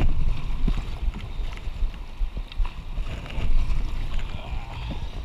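Rapids rushing and splashing around an open canoe as it is paddled through whitewater, with wind rumbling on the microphone.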